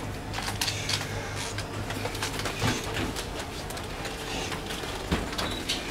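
Steady low hum of a ferry's machinery and ventilation in a cabin corridor, with scattered short clicks and rustles over it.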